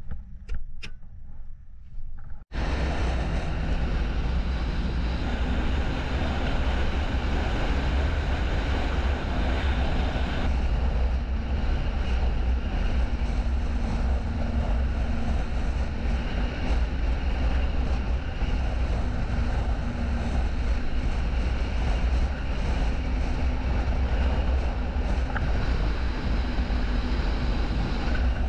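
A snowmobile running at speed across the ice, its engine and track noise mixed with heavy wind rumble on the microphone. It starts abruptly about two and a half seconds in, after a few light knocks.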